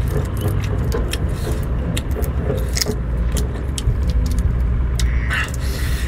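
Cooked shellfish being cracked and peeled by hand, then bitten: a run of short, sharp shell clicks and crackles over a steady low rumble.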